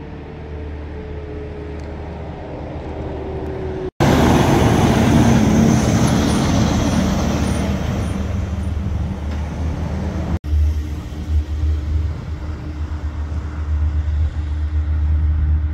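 Heavy-duty tow truck's diesel engine running as the truck drives along the road. It comes in loud and sudden about four seconds in and is cut off about ten seconds in. Steady, quieter low engine rumble comes before and after.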